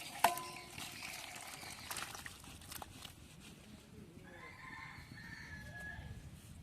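An animal call, drawn out on a steady pitch, from about four seconds in, after a sharp clink with a short ring near the start.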